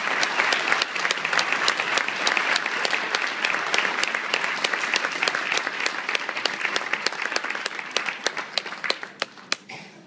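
Audience applauding. The clapping is dense at first, then thins to a few scattered claps in the last two seconds and stops.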